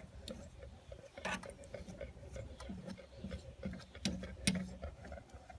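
Metal grooming comb drawn up through the long hair on a Newfoundland dog's front foot: faint, uneven ticks and rustling strokes.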